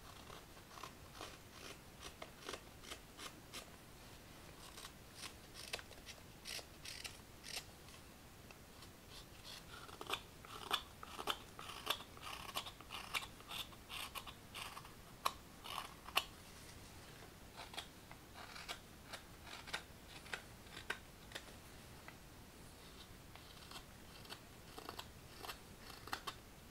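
Carving knife slicing thin shavings from green walnut: a run of short, crisp cuts, coming thick and fast for several seconds around the middle and more spaced out before and after.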